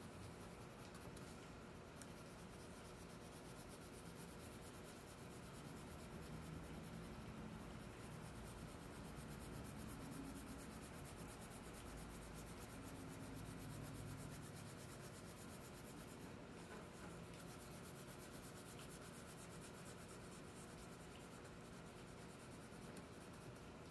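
Wax crayon rubbing across paper, a faint, steady scratching as an area is coloured in with strokes in one direction.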